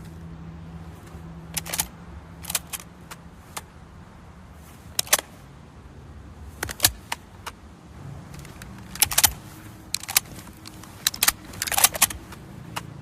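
Lee-Enfield bolt-action rifle being handled: a string of sharp metallic clicks and clacks at irregular intervals, bunched more closely in the second half.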